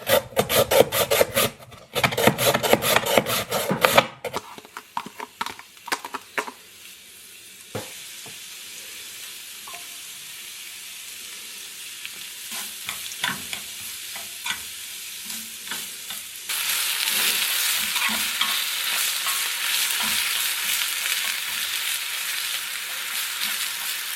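Quick stirring strokes against a bowl for the first few seconds, then some scattered clicks. After that comes food frying in a pan: a steady sizzling hiss that gets louder about two-thirds of the way through.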